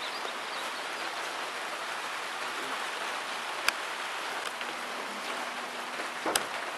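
Steady rain falling, heard as an even hiss, with two brief sharp clicks, one about halfway through and one near the end.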